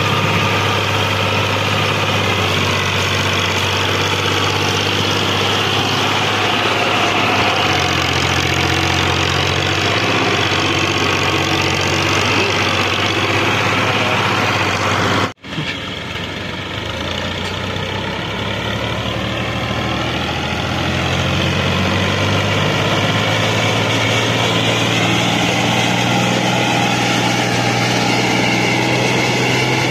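Farm tractor's diesel engine running steadily as it hauls a heavily loaded sugarcane trolley, working under load. The sound drops out for a moment about halfway through, then returns quieter and builds back up.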